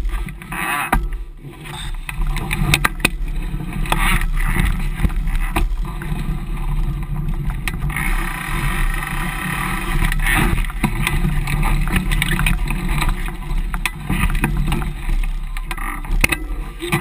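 Mountain bike ridden over rough, rocky trail, heard from a camera mounted on its frame: a constant rumble from the knobby tyres and frame, with wind on the microphone and frequent sharp knocks and rattles as the bike jolts over rocks and roots.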